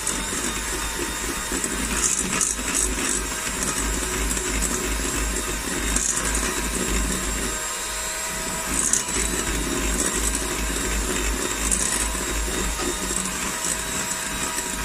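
Ottimo electric hand mixer running steadily, its beaters whisking an egg into creamed butter and sugar in a glass bowl, with a few brief knocks of the beaters against the bowl.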